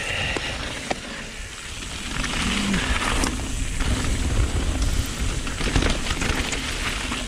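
Downhill mountain bike riding fast over a loose gravel trail: tyres crunching over stones and the bike rattling, with a steady low rumble of wind on the microphone.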